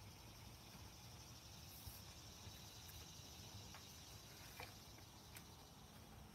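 Near silence with a faint, steady chorus of insects and a few faint clicks.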